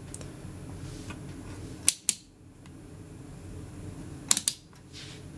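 Sharp handling clicks of capacitors and test leads being worked on a capacitor tester: two clicks about two seconds in and a quick run of three more about four seconds in, over a steady low hum.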